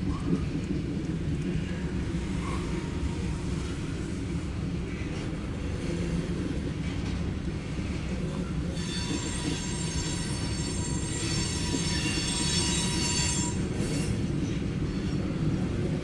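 Loaded coal hopper cars of a CSX freight train rolling past with a steady rumble. About nine seconds in, the steel wheels start squealing in a high, ringing whine that lasts about four seconds.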